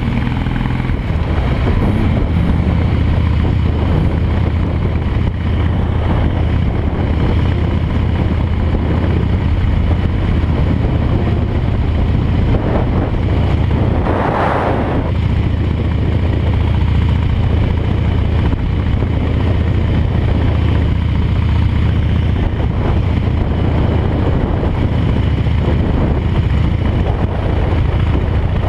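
Harley-Davidson V-twin engine running steadily at cruising speed, with wind buffeting the microphone. A brief louder rush of air rises and falls about halfway through.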